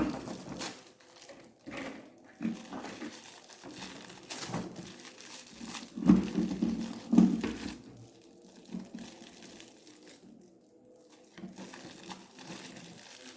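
Plastic toy packaging crinkling and rustling in irregular bursts as it is handled and unwrapped, with a few louder knocks about six and seven seconds in.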